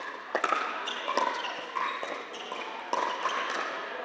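Pickleball rally: a series of sharp pops from paddles striking the plastic ball, several in quick succession, each with a short ring, echoing in a large indoor court hall.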